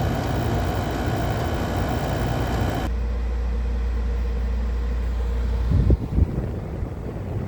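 Air conditioner running: a steady hum and rush with whining tones. About three seconds in the higher rush cuts out abruptly, leaving a strong low hum, and a couple of dull thumps follow a few seconds later.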